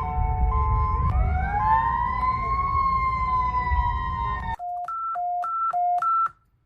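Emergency alert siren: a hi-lo two-tone siren over a low rumble, breaking about a second in into a rising-and-falling wail. About four and a half seconds in it cuts off abruptly, and a quick alternating low-high beep plays three times, then stops.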